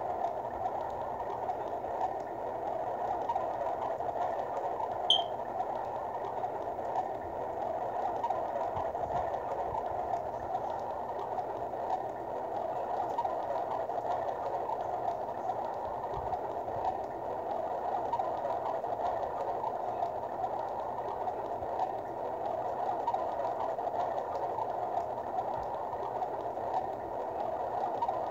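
Underwater ambience sound loop from a tablet live-wallpaper app: a steady, even rushing noise with no breaks, and one short high chirp about five seconds in.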